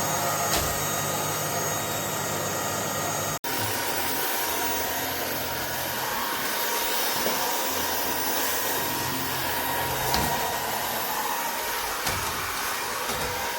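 Cordless stick vacuum with a brushless motor running steadily, an even rushing hiss with a steady whine on top, broken by a very brief gap about three and a half seconds in.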